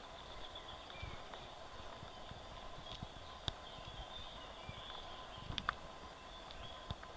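Footsteps walking on a leaf-strewn forest dirt path: soft, uneven thuds about twice a second, with a few sharp clicks a little past the middle.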